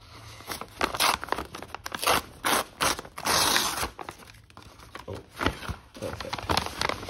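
Kraft-paper mailer bag being torn open by hand, with crinkling and rustling of the paper between short tears and one longer rip a little past halfway.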